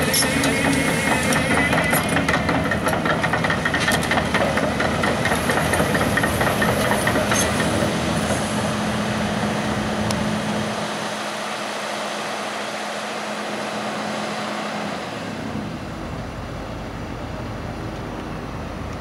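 Volvo crawler excavator's diesel engine running as the machine travels on its steel tracks, with many sharp track clanks and squeaks over the engine hum. About ten seconds in the clanking stops and a steadier, quieter machine noise remains.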